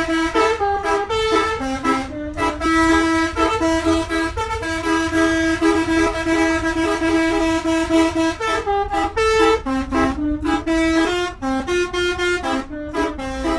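Indonesian bus telolet musical horn played as a tune: a run of short and held notes stepping up and down in pitch, with brief breaks about two seconds in and near the end.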